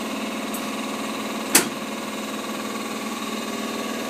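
A steady electric-motor hum, with one sharp clack about one and a half seconds in and a faint tick shortly before it.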